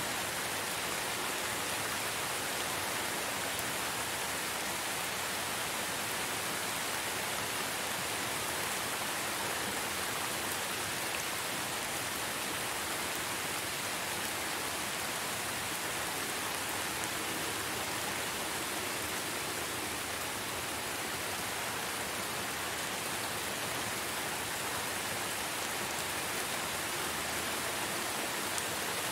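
Steady rain falling, an even hiss with no single drops standing out and no change in strength.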